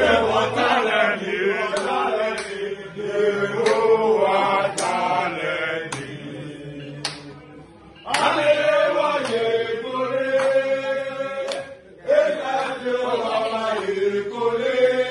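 A group of men chanting and singing together in jubilation, with sharp claps scattered through it. The chant drops away briefly twice, about halfway through and again near the end.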